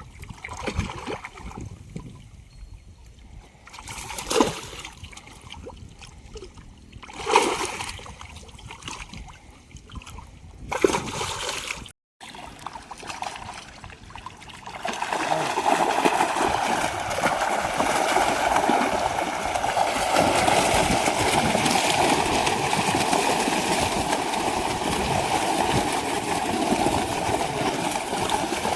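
Water splashing in a few separate bursts, then, after a break, a steady rush of moving water.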